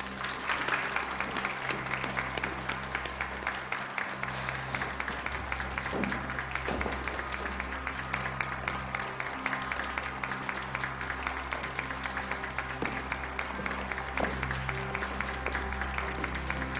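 Crowd of guests applauding steadily, many fast claps, over soft background music with held tones.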